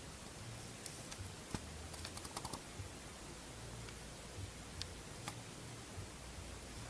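Faint scattered clicks and taps over a steady recording hiss, with a quick run of several clicks about two seconds in.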